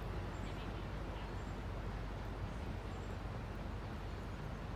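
Steady low outdoor rumble with a few faint, short bird chirps high above it.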